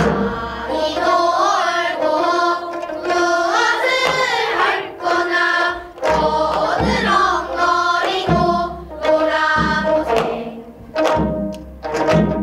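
Gayageum byeongchang: a group of children sing a danga in unison while plucking their gayageum, the voices sliding and bending in pitch. A buk barrel drum marks the rhythm with low thumps.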